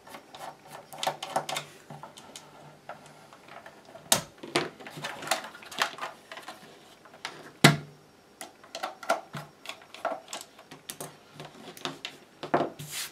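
Clicks, scrapes and knocks of hands working on a plastic battery-charger case: a small screwdriver taking out its base screws, and the case being turned over and set down on the work mat. The sharpest knocks come about four and seven and a half seconds in.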